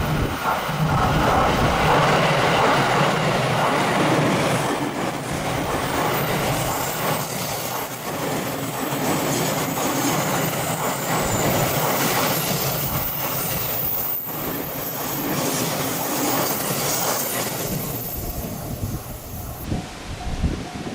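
A train running past at close range, its wheels clattering over the rails with scattered sharp knocks. It is loudest in the first few seconds, then slowly dies away toward the end.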